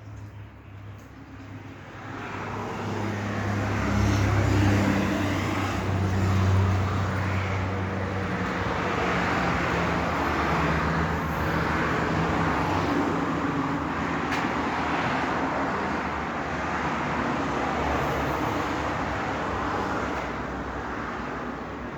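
A motor or engine running steadily: a low hum with a wide rushing noise over it. It builds up about two seconds in and eases off slightly near the end.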